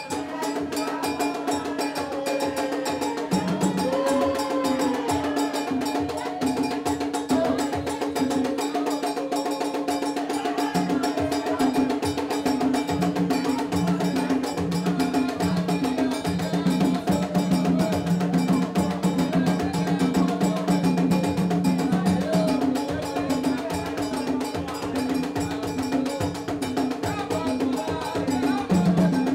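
Haitian Vodou ceremonial music: a fast, even struck percussion beat with people singing over it.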